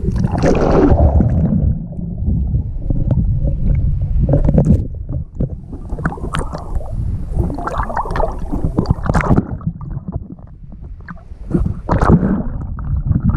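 Water splashing and sloshing close to a GoPro in irregular surges, over a steady low rumble.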